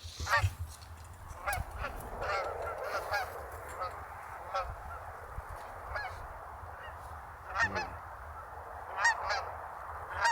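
Geese honking: a large flock calling together, with louder single honks rising out of it every second or two.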